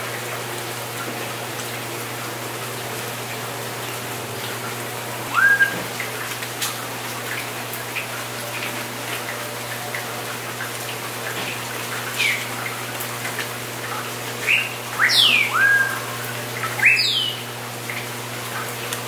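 Bird calls over a steady hiss and low hum. They are short whistled notes that rise and then level off, and quick whistles that fall steeply in pitch. One comes about five seconds in, and the rest bunch together in the second half.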